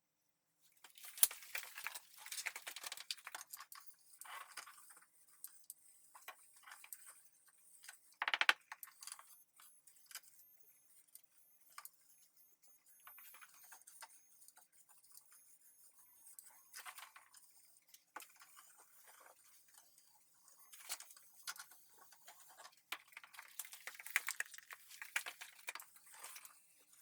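Intermittent small clicks, rattles and rustles of hand work with tools and parts, with one sharper knock about eight seconds in.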